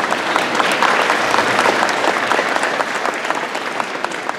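Audience applauding, many hands clapping at once; the applause builds over the first second or so and tapers off toward the end.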